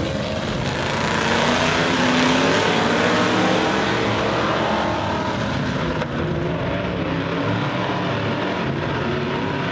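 A field of stock cars racing at full throttle at the start of a 20-lap race, many engines running at once. The sound swells a little about a second in as the pack comes by.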